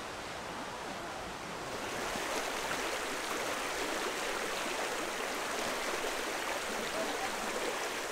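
A shallow stream running over stones, with a steady rush of water. It gets louder about two seconds in.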